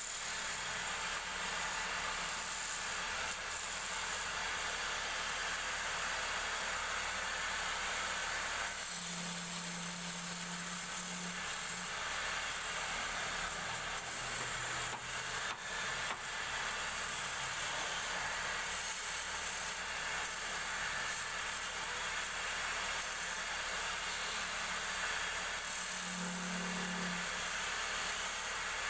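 Wood lathe running while a hand-held turning chisel cuts a spinning wooden bed-leg spindle: a steady scraping hiss of the cut, with a short low hum twice.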